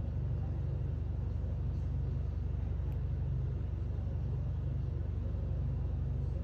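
A steady low hum or rumble that holds at one level throughout, with nothing else prominent.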